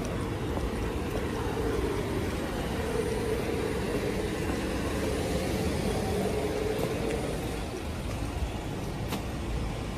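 Steady vehicle rumble with a low drone that swells a little in the middle and eases near the end.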